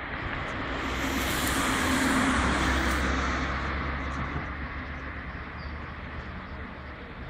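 A vehicle passing by: the noise of its engine and tyres swells to a peak about two seconds in, then slowly fades away.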